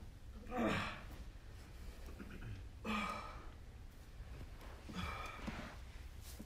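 Wordless groans and sighs of a person waking up, three of them about two seconds apart, over a low steady hum.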